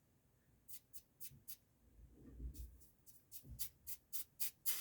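Faint, short hissing spits from water meeting a hot soldering iron tip: a few scattered ones, then a quicker run near the end as the tip heats up.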